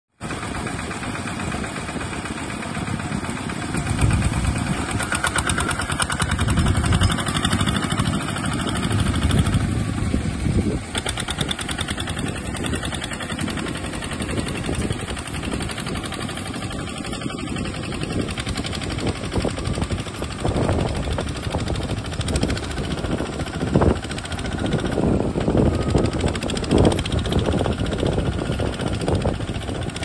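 Single-cylinder diesel engine of a Kubota two-wheel walking tractor running under load as it pulls a rice-field sprayer rig. The sound swells and fades, with louder spells a few seconds in and irregular peaks in the second half.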